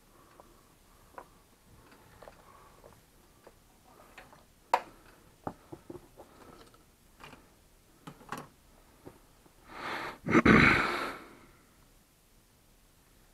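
Small clicks and taps of hands working wires, a soldering iron and parts on a hardboard tray during soldering. About ten seconds in comes a loud rush of exhaled breath in two puffs, the loudest sound here.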